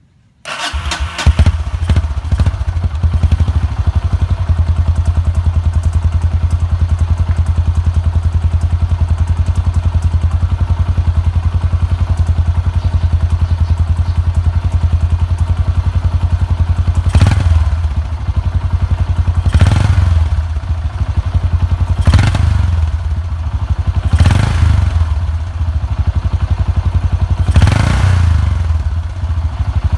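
Yamaha SRX400's air-cooled single-cylinder four-stroke engine catches about half a second in and idles with a steady, quick thumping and mechanical clatter. From about halfway it is blipped five times, each rev rising and falling back to idle, roughly every two and a half seconds.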